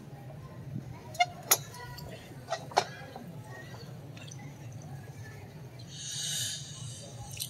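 Hushed crowd ambience in a pause of an amplified Quran recitation: a steady low hum and murmur. There are a few sharp clicks, two about a second and a half in and two near three seconds. A hiss swells and fades about six seconds in.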